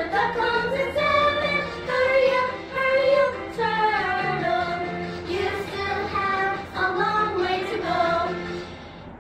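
Children's storybook song: a sung melody over a backing track with a steady beat, growing quieter near the end.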